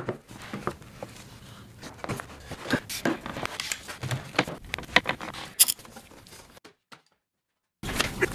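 Bar clamps and F-clamps being set and tightened on a plywood bent-lamination form: irregular clicks and knocks of metal clamp parts against the wood, with a short break near the end.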